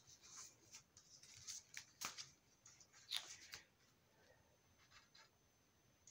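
Faint rustling and scraping of paper envelopes and cards being handled, in scattered short strokes, the clearest about two seconds in and again just after three seconds.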